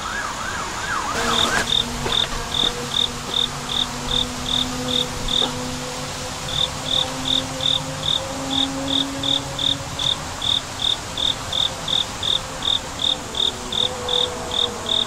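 A cricket chirping steadily, about two and a half short high chirps a second, with a brief pause about halfway through. A siren yelps up and down at the start and stops about a second and a half in, and a faint low drone runs underneath.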